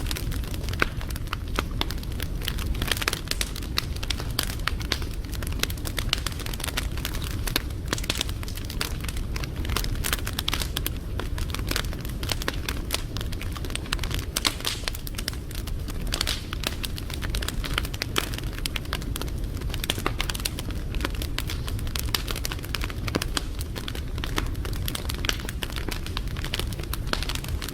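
Wood fire crackling steadily, with many small irregular snaps over a low rumble of the flames.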